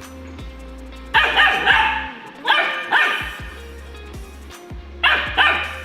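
Labrador puppy barking in three short bursts of high barks over background music.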